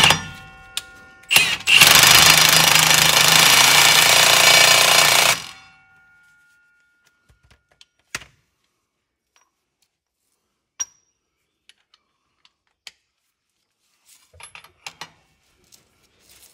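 Milwaukee half-inch cordless impact wrench hammering the gauge wheel axle nut tight on a John Deere drill opener, set on setting 2 to bring it close to 120 foot-pounds: two short bursts, then a steady run of about four seconds that stops abruptly. A few light metallic clicks and taps follow.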